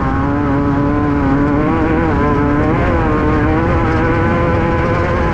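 Class 5/1600 race car's air-cooled 1600cc VW flat-four engine running hard, heard from inside the car, its note climbing gently and shifting about three seconds in, over a steady low rumble.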